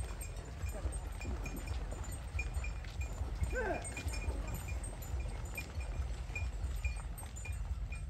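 Bells on walking cattle and water buffaloes clinking irregularly as the herd moves, a few rings a second, over a low rumble. A single short animal call rises and falls about three and a half seconds in.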